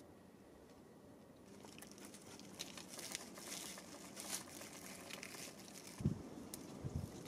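Dry, fibrous bark being pulled and torn into strips by hand, a crackly rustling of fibres that starts about a second and a half in. Near the end come a few low knocks of handling.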